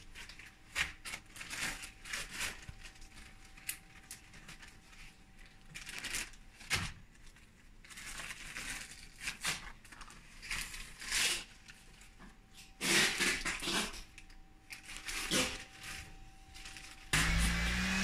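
Scattered handling clicks, rustles and crinkles. About 17 s in, a Maytech MTI120116 brushless inrunner electric-surfboard motor starts up, spinning its propeller in open air, and runs with a loud, steady electric hum whose pitch climbs.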